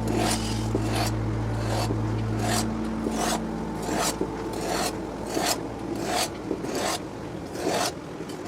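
A blade being sharpened, rasping in even strokes about one every two-thirds of a second. A steady hum under the first few seconds fades out about three seconds in.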